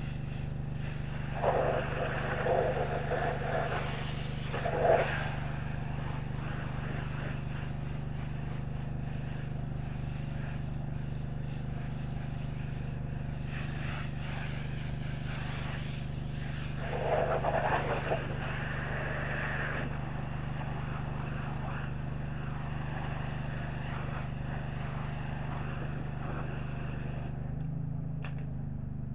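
A pressure washer's engine runs with a steady low drone while the wand's water jet hisses against a semi-truck's wheel and cab. The spray gets louder twice where the jet hits close in. The spray shuts off near the end and the engine keeps running.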